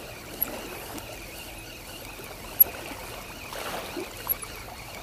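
Seawater trickling and lapping against the stones of a seawall, with a few light clicks and one sharp tap about halfway through.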